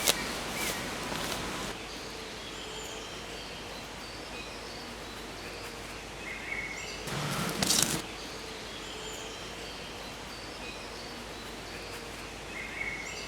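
Steady wind noise in woodland with a few faint bird chirps. About seven seconds in there is one louder burst about a second long, heavy in the low end, such as a spade working into the ground.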